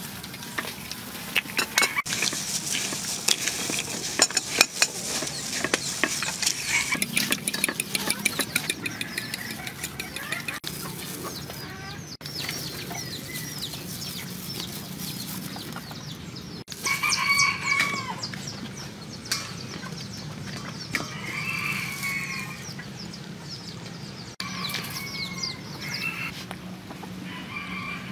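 Chickens clucking, with a rooster crowing once in a call of about a second and a half about two thirds of the way through. In the first ten seconds or so, a dense dry crackling and rustling from hands working in coarse bread crumbs.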